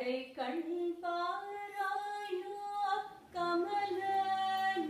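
A woman singing a devotional song solo, holding long, steady notes, with a short breath break a little after three seconds.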